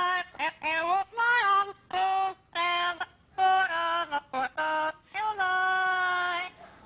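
Amazon parrot singing a song in a high, human-like voice: a string of held notes in short phrases with brief breaks between them, the longest note near the end.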